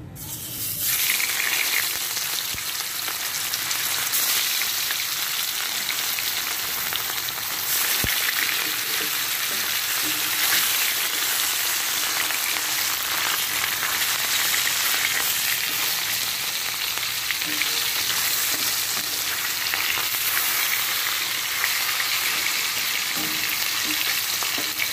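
Marinated catla fish pieces sizzling and frying in hot oil in a kadai. The sizzle starts about a second in, as the fish goes into the oil, then holds steady.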